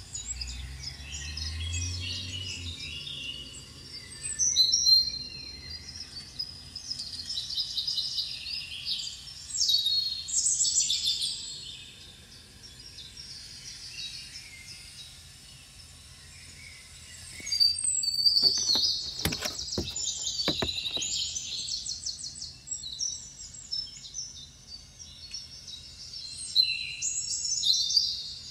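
Birds chirping and twittering in quick, high runs, with a short lull past the middle. A few sharp clicks come in a cluster about two-thirds of the way through.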